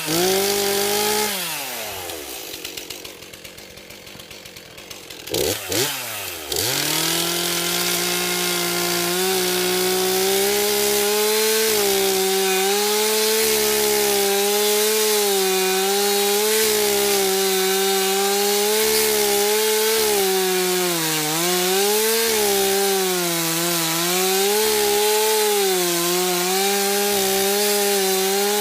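Two-stroke chainsaw revving, falling back to idle, blipped twice, then held at full throttle from about six seconds in while it cuts through wood, its pitch sagging and recovering a few times under the load of the cut.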